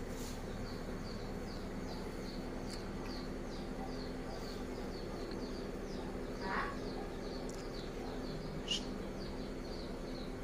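A steady rhythm of short high chirps, about three a second, over a low steady hum, with a brief rustle partway through and one sharper chirp near the end.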